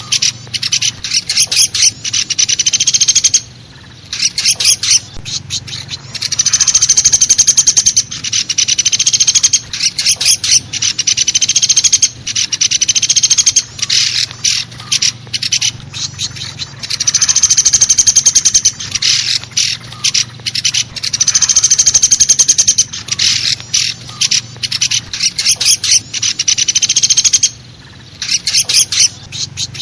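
Woodpecker calls from a bird-lure recording, loud: long, rapid rattling trills alternating with runs of sharp separate notes, with a brief pause twice.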